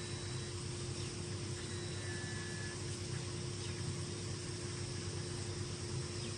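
Small electric motor and geared drivetrain of a radio-controlled scale truck running at a steady pace, giving a constant even whine over a low hum.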